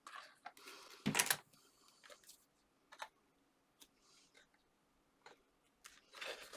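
Paper card being handled and pressed into place on a tabletop: scattered light clicks, taps and rustles, with a louder rustle and knock about a second in.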